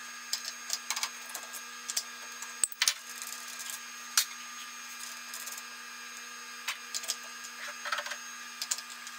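Sped-up audio of an end mill being swapped into a CNC router's spindle: a steady hum with many quick, scattered clicks and clinks of tools and parts being handled.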